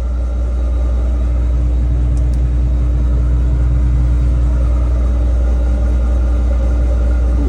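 John Deere 9760 STS combine's diesel engine idling steadily after a cold start, heard from inside the cab as a constant low hum, with the cab heater running. Two faint ticks about two seconds in.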